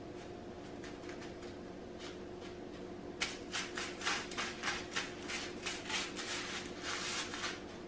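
Hands pressing and patting a cod fillet into panko breadcrumbs in a disposable foil pie pan. From about three seconds in there is a fast, irregular run of dry crunching and crackling from the crumbs and foil, over a steady low hum.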